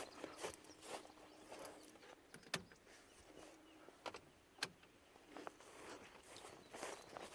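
Faint rustling and movement with two sharp clicks about two seconds apart.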